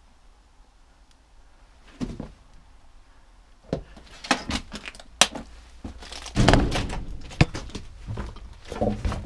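Knocks, thuds and rattling clatter from someone moving about in a cellar: a single thud about two seconds in, then a run of sharp knocks and clicks with a louder stretch of clatter a little past halfway.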